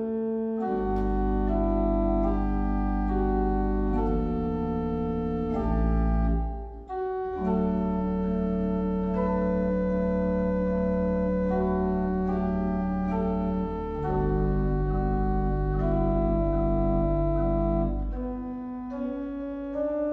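1970 M.P. Möller Opus 10501 pipe organ playing slow sustained chords over deep held bass notes, with a short break about seven seconds in.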